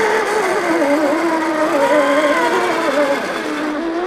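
Electric drivetrains of 1/10-scale RC crawler trucks whining as they drive, the pitch wavering up and down with the throttle.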